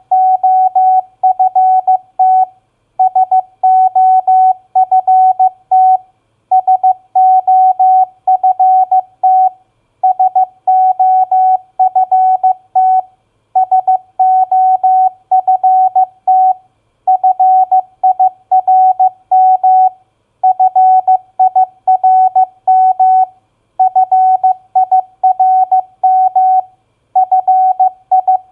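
Morse code at 15 words per minute: a single steady-pitched beep keyed on and off in dots and dashes, spelling four-letter words such as soft, firm and hard. Each word lasts about three seconds, with a short pause of about half a second before the next.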